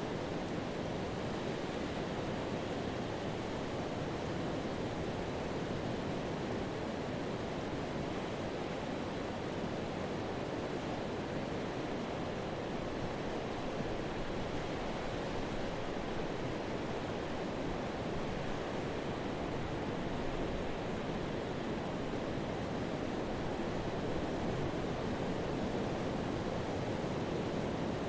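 Ocean surf on a sandy beach: a steady, unbroken wash of breaking waves and foam running up the shore.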